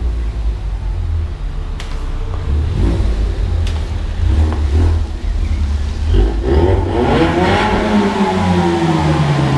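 2015 Ford Mustang's 2.3-litre turbocharged EcoBoost four-cylinder engine on the move, over a steady low road rumble. About six seconds in, the engine note comes up strongly, rising in pitch and then falling slowly.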